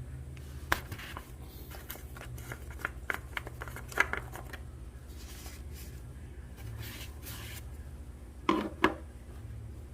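Hands handling something: scattered light clicks and rubbing, with a sharper click about four seconds in and two louder knocks near the end, over a steady low hum.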